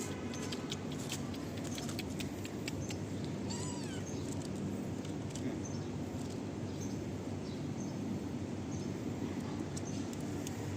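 Domestic cat giving a short meow about four seconds in, over a steady low background rumble with scattered small clicks.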